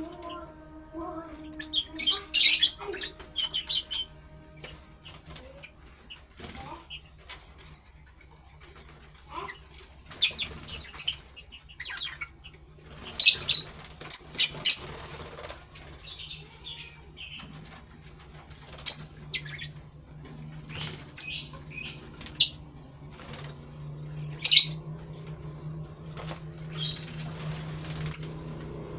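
Lovebirds chattering in scattered bursts of short, shrill, high-pitched chirps, over a faint low steady hum.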